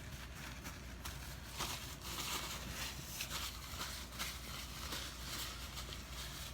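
A person chewing a mouthful of chicken sandwich close to the microphone: irregular soft, crackly mouth and chewing sounds.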